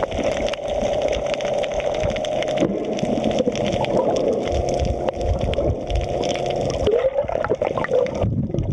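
Muffled underwater sound of an action camera in its waterproof housing: water gurgling and sloshing around it as it moves through the water, with dull low thumps.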